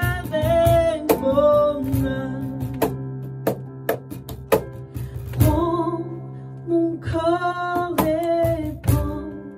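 A woman singing a worship song, accompanying herself on a Roland digital piano: sung phrases with long held notes over struck piano chords.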